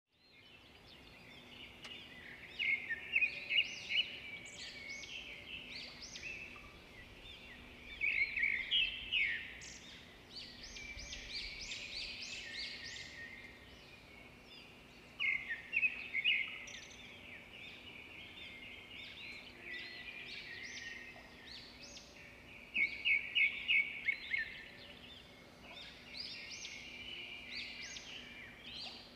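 Small birds chirping and singing in short bursts of rapid, repeated notes every few seconds, over a faint steady hum.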